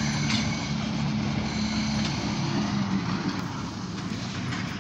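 Diesel freight locomotive running as it hauls a short string of freight cars past, heard through the windows of a car. Its low engine hum weakens in the second half.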